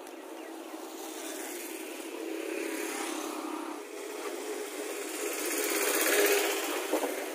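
Motor vehicle engine noise, likely passing traffic, that swells, dips, then rises to its loudest about six seconds in before fading.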